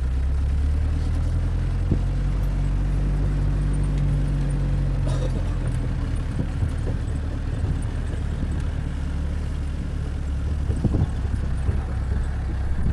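Engine of an open 4x4 jeep running steadily as it drives over rough, rocky ground. A few knocks and rattles from the bumps come through, a cluster of them about eleven seconds in.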